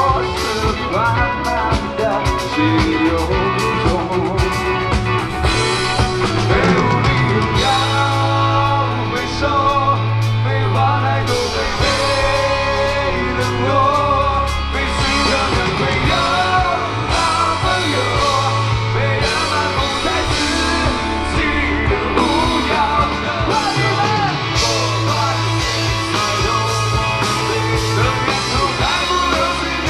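Live rock band playing with a lead singer: sung vocals over electric guitar, bass guitar and a drum kit, at a loud and steady level.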